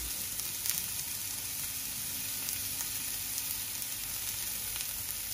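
Broccoli florets and chopped garlic frying in olive oil in a nonstick pan: a steady sizzle with a few faint pops.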